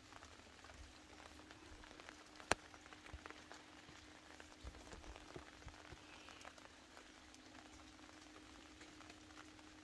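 Light rain falling on a garden, heard as faint scattered drops ticking on leaves and stones, with one sharp tap about two and a half seconds in. A faint steady hum sits underneath.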